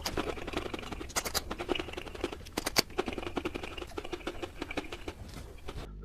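Chewing and mouth sounds of someone eating tandoori chicken: a rapid, irregular run of wet clicks and smacks that stops abruptly near the end.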